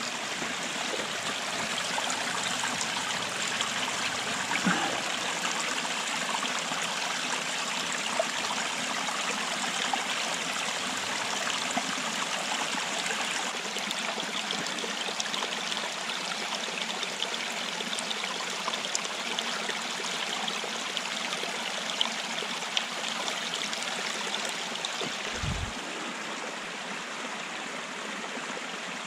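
Running water flowing steadily, with a brief low thump near the end.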